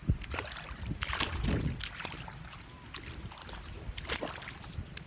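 Feet wading through shallow muddy pond water: irregular steps and splashes, the sharpest just after the start.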